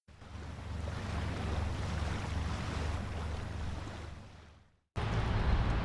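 Steady outdoor noise, a low rumble under an even hiss, fading in over the first second and fading out about four and a half seconds in. After a brief silence, similar noise cuts back in.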